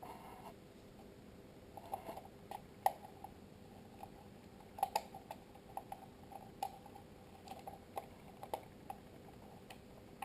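Small screws being driven into an IP camera's case with a hand screwdriver: light, irregular clicks and ticks.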